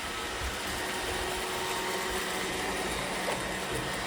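Robot vacuum cleaners running with a steady whir, picking up clay chips from a hard floor.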